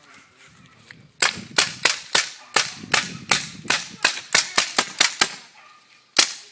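Paintball gun fired in a rapid string of about fourteen sharp shots, about three a second, starting a second in, then one more shot after a short pause near the end.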